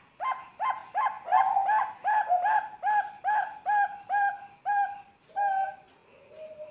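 Young zebra dove (perkutut, Bangkok-bred, about three months old) cooing: a fast run of short, clear cooing notes, about three a second, followed by a softer, lower falling coo near the end.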